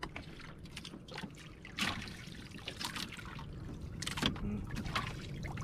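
Sea water lapping and trickling against the hull of a small outrigger boat, with a few light knocks and clicks, the clearest about two seconds and four seconds in.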